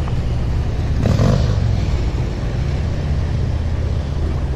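Road traffic on the bridge: a steady low rumble of vehicles, with one passing louder about a second in.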